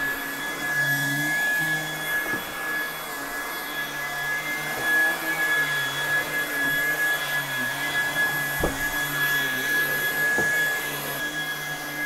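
Lupe Pure cordless stick vacuum running in its high power mode on carpet: a steady high motor whine over a lower hum that wavers as the floor head is pushed back and forth. One short knock about two-thirds of the way through.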